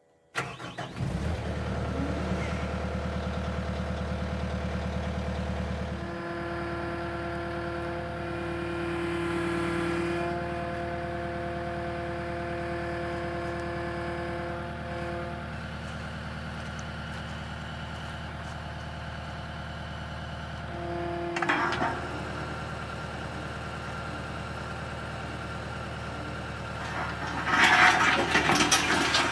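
Engine of a digging machine running steadily, with held whining tones that change pitch about six seconds in and again about twenty-one seconds in. Rough scraping and clattering come in near the end as it digs the trench.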